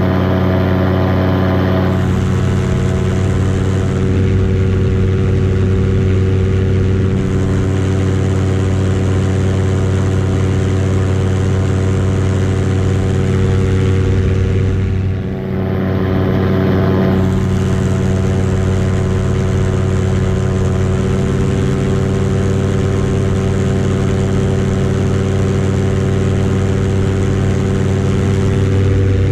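Paramotor engine and propeller running steadily at cruise, a constant droning note, with a brief dip in loudness about halfway.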